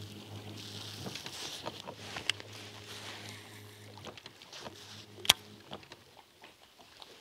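Steady low hum of a bass boat's motor under a faint hiss, broken by a few sharp clicks; the loudest click comes a little past five seconds in, and the hum dies out soon after.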